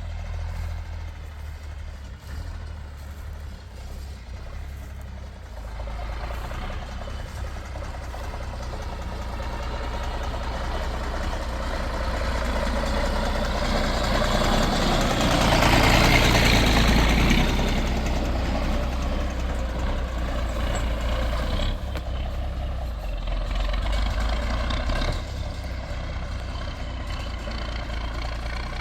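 Tractor engine running steadily, building to its loudest about halfway through with a rush of noise, then easing back down.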